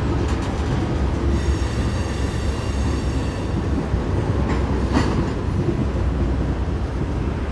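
Freight cars (an autorack, a covered hopper and tank cars) rolling past with a steady low wheel rumble. A high-pitched wheel squeal runs for about two seconds near the start, and there is a single sharp clank about five seconds in.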